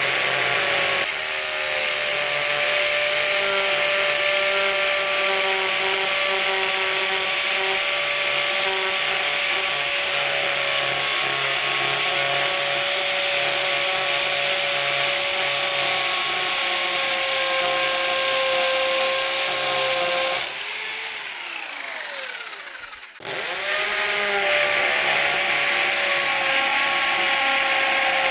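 Parkside PSBM 750 B3 750-watt hammer drill with an 8 mm masonry bit, running under load as it drills into a very hard old concrete block. About twenty seconds in the motor is let off and winds down with a falling whine, then starts up again and keeps drilling.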